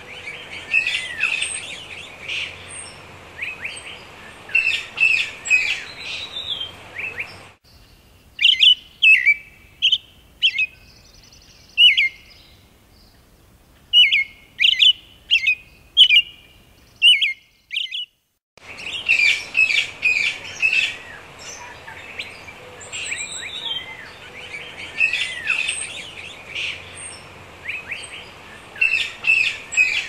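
Small birds chirping busily, many quick chirps overlapping. About eight seconds in the chorus thins to separate loud chirps. It breaks off briefly near eighteen seconds, then resumes as dense chirping.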